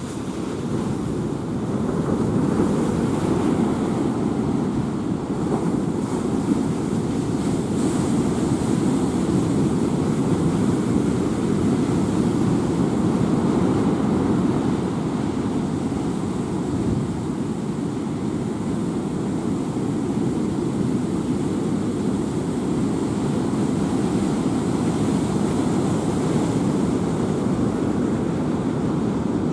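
Typhoon storm wind, a dense low rushing roar buffeting the microphone. It swells about two seconds in and then holds steady.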